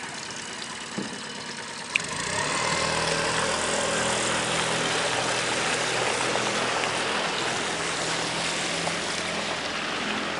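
Small outboard motor on an aluminum johnboat, starting about two seconds in and then running steadily as the boat pulls away.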